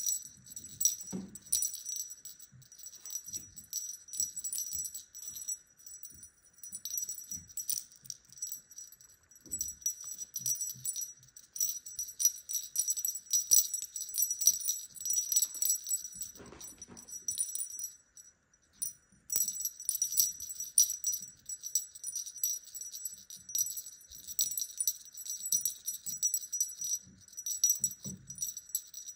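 Small metal jingle bell on a feather wand cat toy jingling in irregular shakes as kittens bat and grab at it, with a short lull about eighteen seconds in. Occasional soft low thumps are heard underneath.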